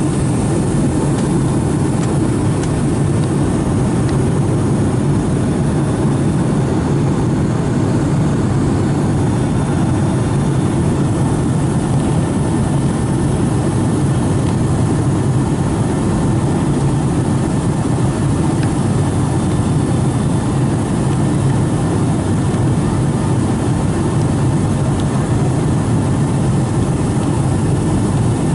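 Steady cabin noise inside a Boeing 757-200 airliner in flight: the twin jet engines' drone and the rush of air past the fuselage, a loud, even, low rumble.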